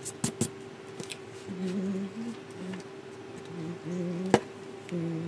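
A man softly humming a tune in short, stepped phrases, with a few sharp clicks: three near the start and a loud one about four seconds in. A faint steady tone sounds under it all.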